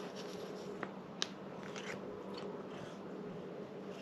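Faint crinkles and a few small sharp clicks from a plastic packet of fresh spaghetti as a cat noses and sniffs at it, over a low steady hum.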